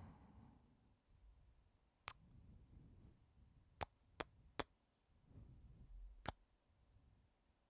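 Close-up kiss sounds: five short, sharp lip smacks at uneven spacing, three of them in quick succession in the middle, with soft breathing between them.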